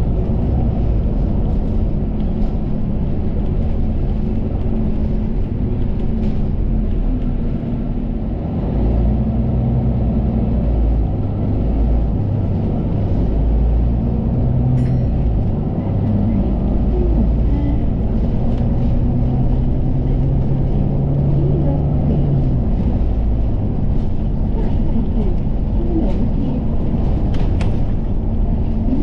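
Running noise of a KMB double-decker bus heard from inside the cabin: a steady engine and road rumble, with an engine note that rises and falls as the bus speeds up and slows.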